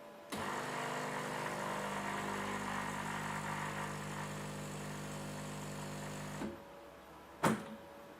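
Bean-to-cup coffee machine's pump running steadily with a hum as it dispenses an espresso, cutting off suddenly after about six seconds; a single sharp click follows about a second later.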